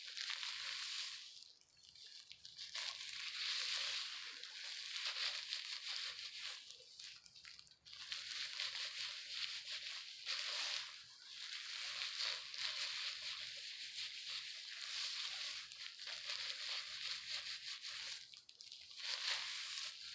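Plastic-gloved hands squishing and rubbing purple hair dye through wet hair, a wet scrunching rustle in long stretches with a few brief pauses.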